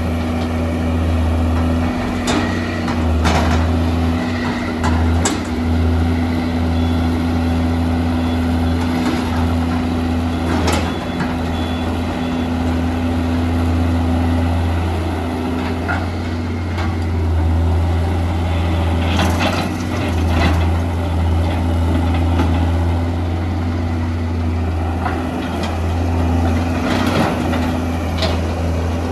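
Hitachi EX200 excavator's diesel engine running with a low, steady drone, with brief knocks and clanks now and then.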